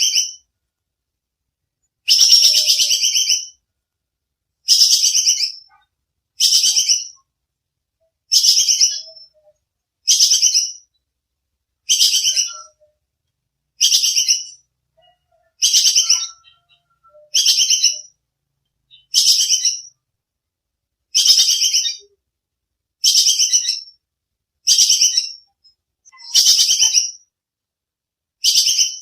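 Squirrel (bajing kekes) giving its sharp, chattering alarm call. Each burst is a rapid train of shrill notes about a second long, fading at the end, repeated evenly about every two seconds.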